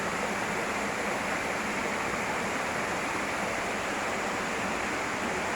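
Waterfall's falling water rushing steadily and evenly.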